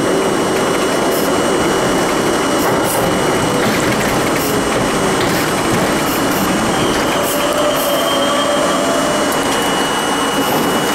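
Budd-built R32 subway car running on the BMT Nassau Street line, heard from inside the car: a steady, loud rumble of wheels on rail with faint thin tones riding over it.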